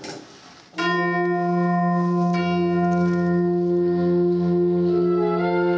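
School concert band of wind and brass instruments playing a long held chord that starts abruptly about a second in. A low note joins a little over a second later, and the harmony shifts near the end.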